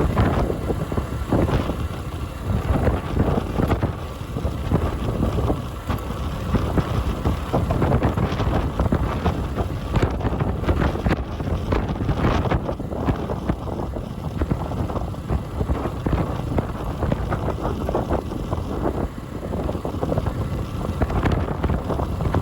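Motorcycle on the move with heavy wind buffeting on the microphone: a continuous, fluctuating rush of noise broken by frequent short knocks and gusts.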